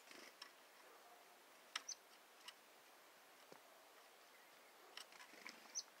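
Chickadee giving a few faint, very short high chip notes, one right at the start, one about two seconds in and one near the end, among scattered light clicks and taps.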